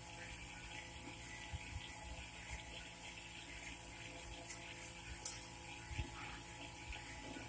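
Faint steady electrical hum with several held tones, broken by a few short sharp clicks, the loudest about five seconds in.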